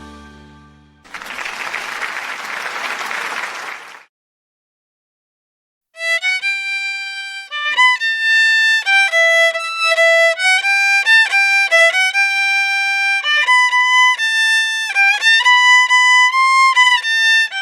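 Solo violin playing a single-line melody of quick changing notes, starting about six seconds in. Before it comes about three seconds of even hiss-like noise and a short silence.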